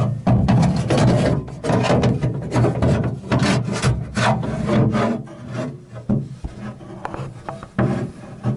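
Repeated rough rubbing and scraping strokes, a few a second, over a steady low hum.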